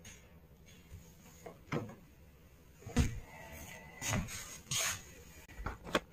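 Several separate knocks and clunks, about five in a few seconds, with quiet between; the loudest comes about three seconds in and another near the end.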